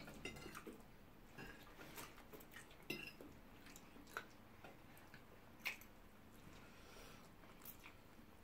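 Faint eating sounds: forks clinking and scraping on plates as spaghetti is twirled, with chewing in between and a few sharp clicks spread through.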